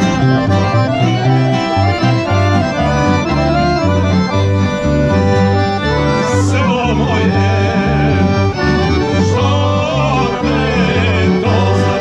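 Live accordion and guitar band playing a lively tune, the accordion leading over a steady, regular bass line. Men's voices join in singing about halfway through.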